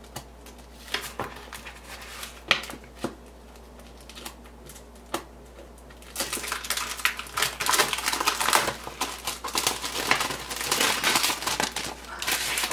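Handling of stationery on a tabletop. First there are a few separate light taps and clicks as a hole-punched planner divider is moved about. About six seconds in, a long stretch of busy crinkling and rustling of paper wrapping begins.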